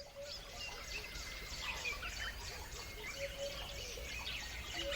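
A chorus of many birds chirping and calling at once, dense short high notes overlapping without pause, with lower arched whistled notes underneath.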